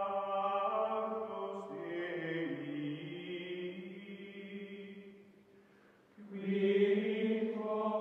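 Outro music of slow, sustained choral chords. The chords fade away about five seconds in, and a new held chord enters about a second later.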